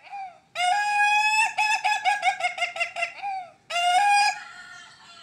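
Ayam Ketawa laughing rooster crowing. A brief note leads into a long held note, which breaks into a quick, stuttering run of short syllables like laughter. After a short pause, one more held note fades away near the end.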